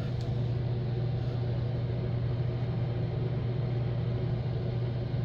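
A steady low hum with an even hiss over it, unchanging throughout, like a running fan or motor.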